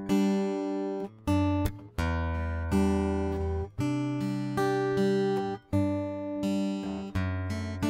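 Custom Hippo Acoustic steel-string guitar played with the fingers, heard through its Fishman Matrix Infinity undersaddle pickup plugged direct into an interface with flat EQ. Chords are struck about once a second, each with a sharp attack, and left to ring into the next.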